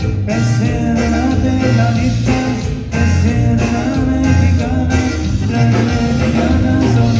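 A live conjunto band playing: button accordion over bass guitar, guitar and drums, with a pulsing bass line.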